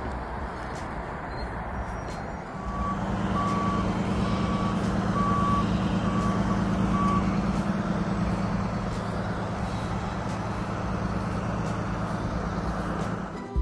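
Tree-service bucket truck's engine running, getting louder about two and a half seconds in. Its reversing alarm beeps six times at an even pace.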